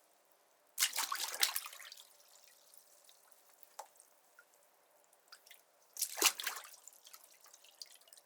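Bathwater splashed by a person sitting in a bathtub: two splashes about five seconds apart, the first lasting about a second, with water dripping and trickling between them.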